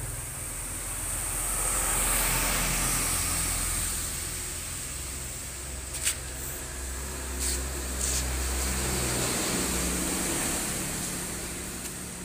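Steady low electrical hum with hiss from a sound system being wired up, with a few sharp clicks about six to eight seconds in.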